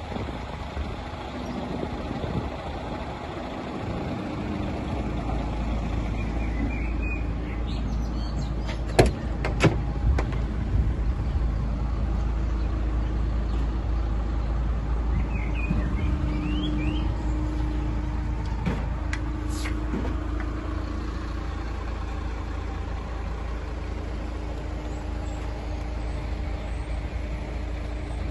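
Steady low rumble with a few sharp clicks, two of them about nine and ten seconds in, and a few short bird chirps.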